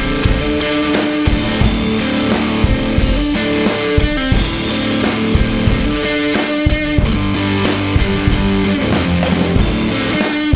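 Rock band playing without vocals: electric guitar sounding held notes over a drum kit keeping a steady beat.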